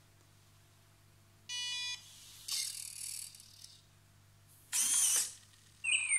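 An electronic beep from a small Arduino-driven buzzer about 1.5 s in, then a small motor whirring twice as the brick cuckoo clock's door opens. Near the end the buzzer starts a quick run of chirping cuckoo tones.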